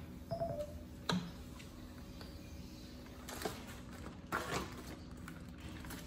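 A few faint knocks and rustles: a sharp knock about a second in, as of drumsticks set down on an electronic drum kit's rubber pad, then paper rustling around three to four and a half seconds in.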